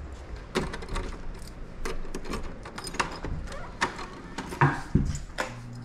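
A run of sharp clicks and knocks from keys and a door latch being handled. A low steady hum starts near the end.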